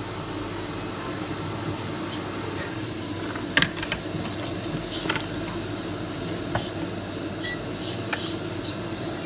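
Steady fan-like mechanical hum, with a few short sharp clicks and taps, the loudest a double click about a third of the way in.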